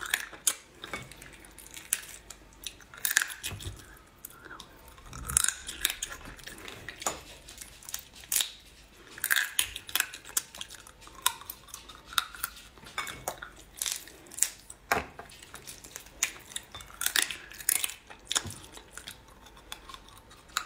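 Close-up eating sounds: chewing and sucking crab meat off pieces of shell, with frequent sharp clicks of shell and a spoon against a ceramic bowl.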